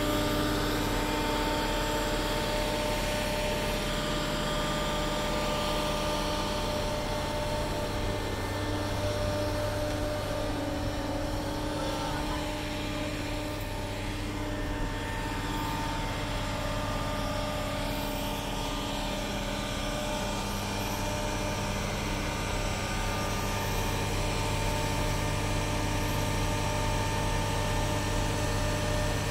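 Diesel engine of a mobile crane running steadily while the crane lifts a sailboat in its slings.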